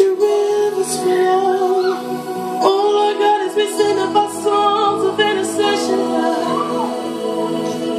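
Women singing a slow, free-flowing worship melody over sustained keyboard chords, with low bass notes coming in about four seconds in.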